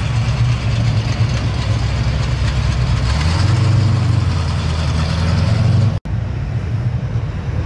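Engine of an orange AMC AMX muscle car running, a V8, with a deep, steady note that shifts about three seconds in.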